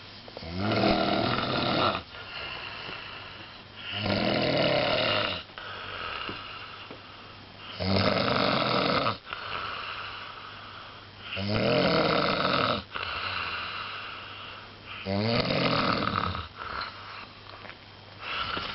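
A person snoring in sleep: five loud rasping snores come about every four seconds, with quieter breathing between them.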